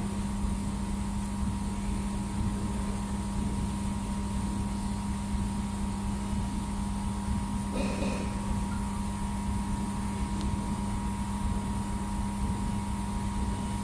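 TPW-2000W laser welding machine running during a stainless-steel test weld: a steady low hum with a fainter higher tone above it, and a brief louder noise about eight seconds in.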